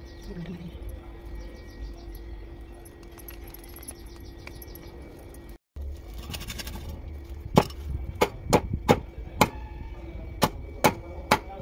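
A knife scraping the scales off a striped snakehead (viral) fish on a wooden board. It is faint scraping at first; then, after a brief break, comes a run of about eight sharp scraping strokes, roughly two a second.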